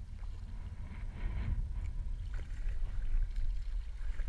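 Canoe paddling: a paddle dipping into the river, with water splashing and dripping beside the canoe, over a steady low rumble that grows louder about a second in.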